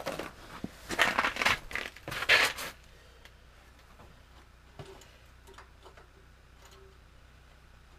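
Close, irregular rustling and scraping handling noise for the first few seconds, then it goes quiet with only a few faint clicks. The diesel engine is not running.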